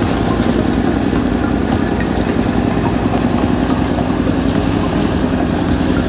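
Tuna longline fishing boat's engine running steadily, a constant low drone.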